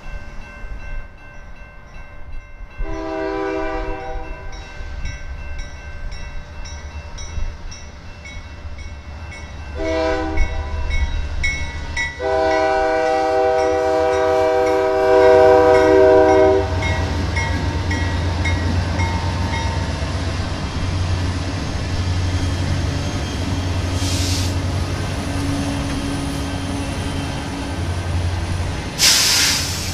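CN diesel freight locomotives' air horn blowing three blasts at a grade crossing: a long one about three seconds in, a short one around ten seconds, and a long four-second blast from about twelve seconds. Under it the crossing bell rings steadily until about twenty seconds in. The locomotives' engines then run loud as they pass, and the cars roll by with two short high hissing bursts near the end.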